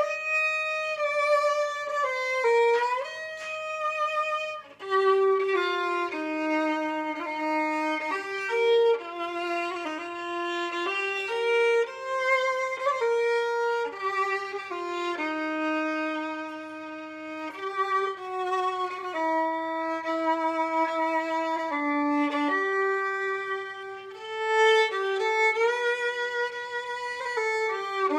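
Violin playing a slow hymn arrangement in two parts, in long held notes that change pitch every second or two.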